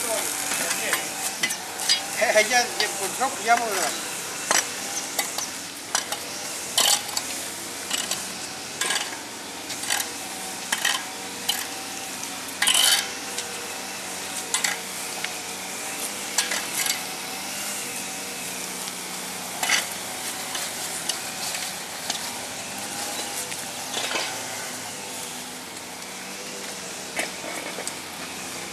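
Metal garden rake scraping and scratching through loose, freshly dug soil in irregular strokes.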